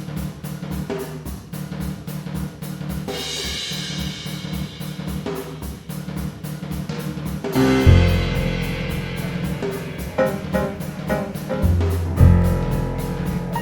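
Intro music with a steady drum-kit beat, bass and guitar; a heavier bass-drum section comes in about halfway through.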